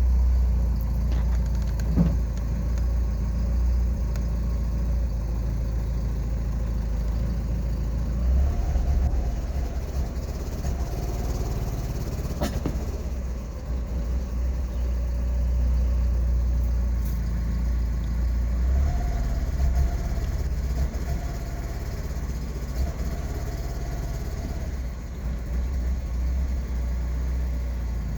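Car engine running with a steady low rumble and a faint wavering higher tone at times.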